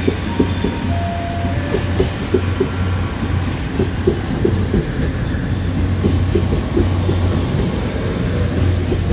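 Taiwan Railway DR2800–3000-series diesel multiple unit running close past along the platform track. A steady low diesel drone sits under a quick, continuing clatter of wheels over rail joints.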